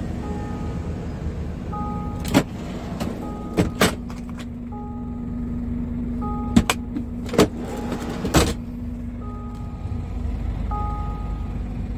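Scania truck cab's warning chime beeping a short two-tone pattern about every second and a half over a steady hum, with several sharp clicks and knocks from cab fittings being handled.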